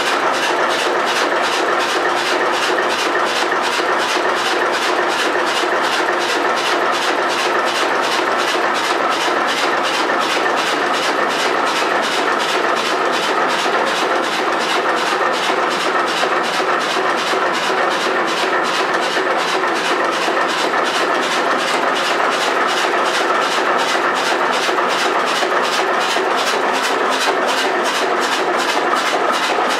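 1925 Brons two-cylinder 40 hp engine running steadily, its strokes and valve gear making a fast, even rhythmic knock at a constant level.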